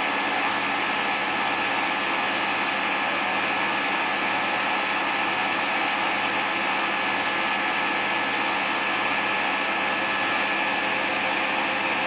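Spindle of a Daewoo ACE-H100 horizontal machining center, with a geared head, running steadily at 4,000 RPM. It makes an even whine with several steady high tones over a hiss.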